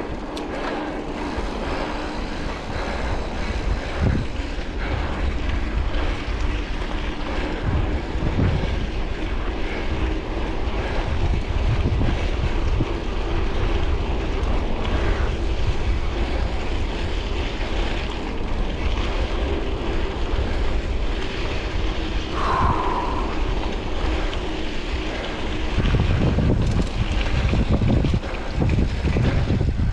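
Wind rushing over the microphone and knobby mountain-bike tyres rolling over dry dirt trail, with knocks and rattles from the bike over bumps. A brief squeak about two-thirds through, and heavier jolts over the last few seconds on rougher, rocky ground.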